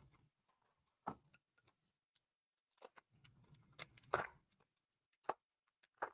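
Star Wars Unlimited booster pack wrapper being gripped and torn open: faint, scattered crackles and ticks, loudest in a short burst of tearing about four seconds in.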